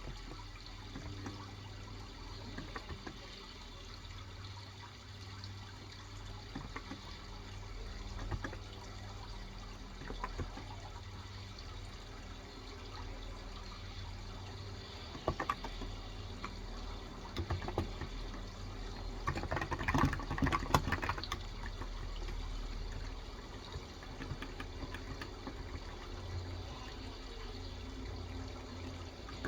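Steady sound of running water, with scattered keystrokes on a Cox Endeavor electro-capacitive 35g tenkeyless keyboard and a quick run of typing about twenty seconds in.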